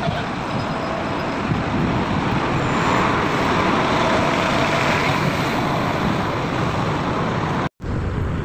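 City bus engine running with the steady rumble of street traffic, heard while boarding at the door and stepping inside. The sound drops out completely for a moment near the end.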